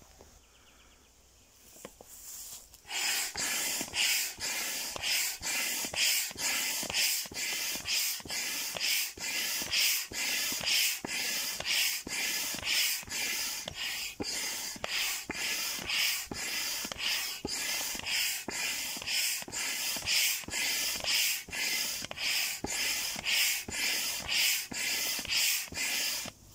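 Hand pump forcing air through a hose into a large vinyl inflatable duck float, a rhythmic hiss of air with each stroke at about two strokes a second. It starts about three seconds in and stops abruptly just before the end.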